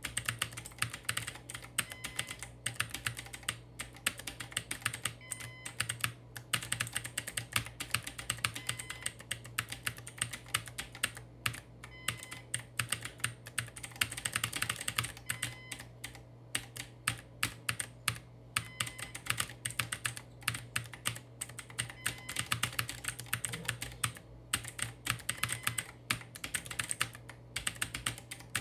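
Continuous fast typing on a clacky computer keyboard, many sharp key clicks in quick irregular runs with brief pauses. A low steady hum sits underneath.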